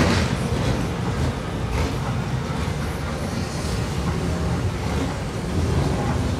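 Ferrari 488 GTB's twin-turbo V8 running at low revs as the car creeps forward and rolls past, a steady low rumble with no revving.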